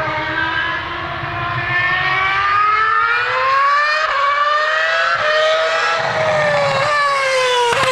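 BMW Sauber F1.06 Formula One car's 2.4-litre V8 at high revs, winding up through the gears with quick upshifts, then falling in pitch as it brakes with short downshift blips near the end.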